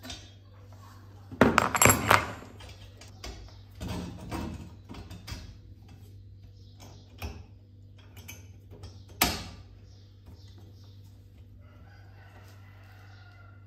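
Metal clanks and knocks from a wrench and a flat steel bar being handled against a steel egg-turner frame: a loud run of knocks about two seconds in, more around four seconds, and one sharp clank about nine seconds in. A low steady hum runs underneath.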